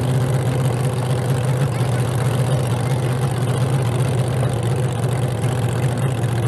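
Jet boat's engine idling as the boat creeps along at low speed: a steady low drone.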